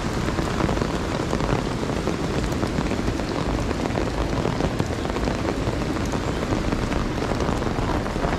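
Steady rain falling, with many small drops ticking as they hit.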